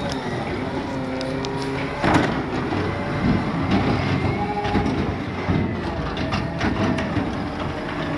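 Automated side-loader garbage truck running, its engine pitch rising and falling as the hydraulic arm lifts a recycling cart, tips it into the hopper and lowers it. Sharp knocks and clatter from the cart and its contents, the loudest about two seconds in.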